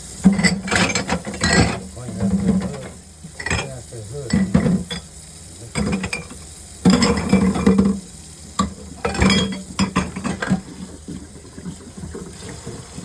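Dishes and utensils being handled while washing up at a sink: irregular clinks, knocks and scraping.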